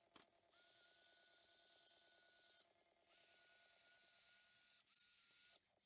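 A small high-speed power tool runs in three bursts of about two seconds, the last one shorter. Each burst is a faint, steady high whine over a hiss, winding up at the start and down at the end.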